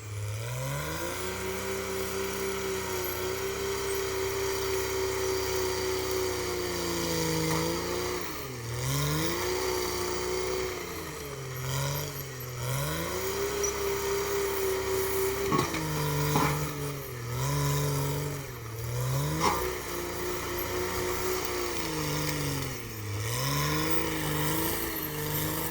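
CAT D6R XL bulldozer's diesel engine running, its speed dropping and picking up again about five times. A few sharp knocks come in the second half.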